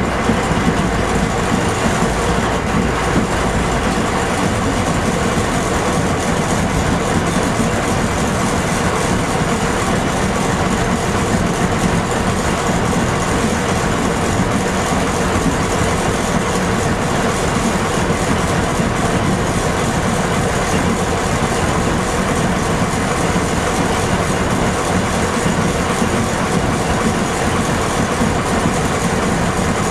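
TU2 narrow-gauge diesel locomotive's V12 diesel engine running steadily, heard from inside the cab as the locomotive rolls slowly along the track.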